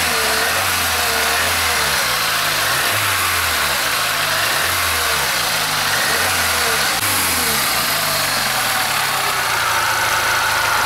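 Volkswagen Golf 3 engine idling steadily, recorded up close in the open engine bay while a repaired heater core plumbed in outside the car is checked for coolant leaks.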